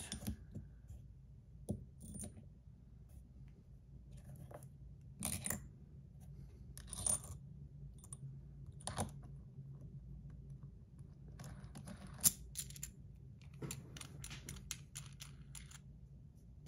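Small metal fidget-spinner parts, the stainless spinner body, its buttons and a bearing tool, clicking and clinking as they are handled, with scattered light metallic clicks and a quick run of clicks near the end.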